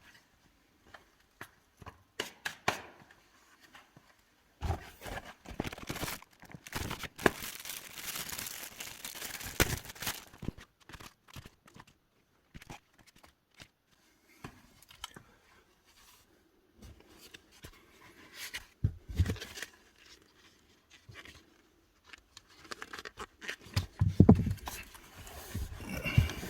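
Handling noises from a car cabin air filter change: scattered sharp clicks and scrapes of plastic parts, with a stretch of crinkling and tearing about five to ten seconds in, and a few louder knocks near the end.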